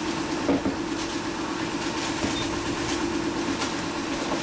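Steady drone of a yacht's engine heard inside the cabin, with light rustles and small knocks of food packets being handled, the sharpest knock about half a second in.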